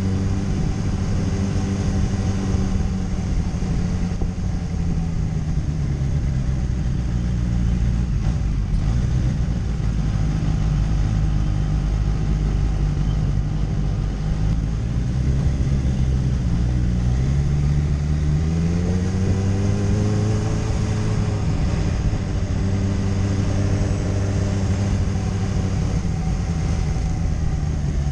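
Sport motorcycle engine heard from on board, running steadily at low road speed; about two-thirds of the way through the revs drop and then climb again as the bike accelerates.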